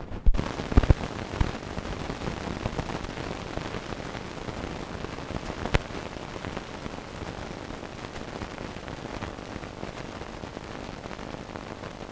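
Steady hiss and crackle of an old film soundtrack, with a few sharp clicks near the start and one more about six seconds in.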